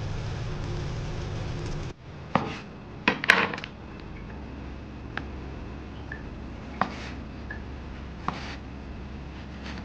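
Battered food deep-frying in a small pot of oil, a steady sizzle that cuts off suddenly about two seconds in. Then a knife slicing a tomato on a wooden cutting board: a series of sharp knocks of the blade on the board, spaced a second or so apart.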